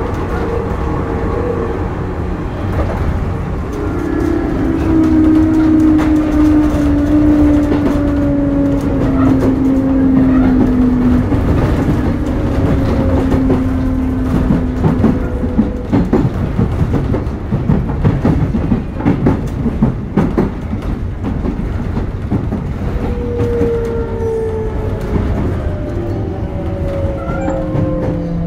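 Onboard running sound of a Sotetsu New 7000 series electric train with a Hitachi early GTO-VVVF inverter: the inverter's tones slide slowly down in pitch as the train slows, over a steady wheel and rail rumble with frequent clicks from rail joints.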